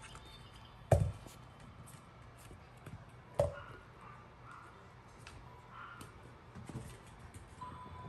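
Two sharp knocks, about two and a half seconds apart, over light tapping and faint background music.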